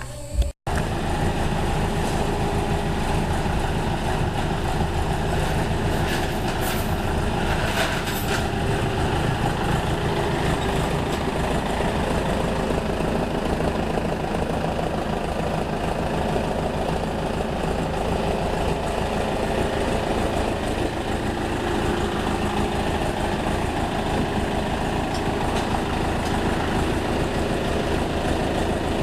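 A heavy engine idling steadily.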